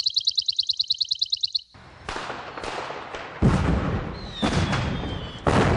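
A fast pulsing high electronic beep that stops abruptly about a second and a half in, then a fireworks sound effect: a string of bangs with crackling tails and a falling whistle, the loudest bang about halfway through.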